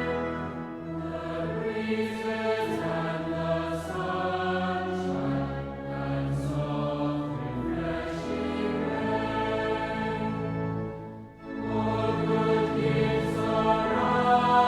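Choir singing a hymn, with held notes and a short break about eleven seconds in before the singing resumes.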